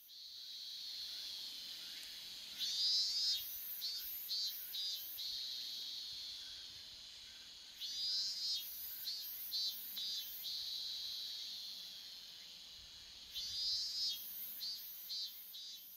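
Cicadas singing: a steady high-pitched drone, with three louder pulsing phrases about five seconds apart.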